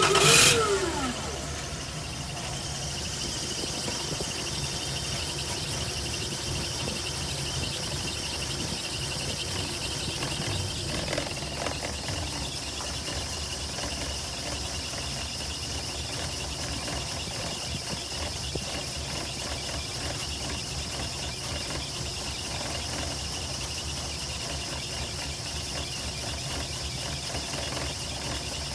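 1996 Toyota Land Cruiser's 1FZ-FE 4.5-litre straight-six catches and flares briefly in revs right at the start, then settles into a rough, uneven idle. This is the violent misfire that sets in once the revs drop, and the fault was traced to the LPG ECU.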